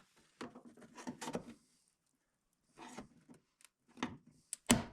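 Plastic retaining clips on a car's exterior trim being pried loose with a trim tool: irregular scraping and rattling clicks, with a sharp, loud click near the end.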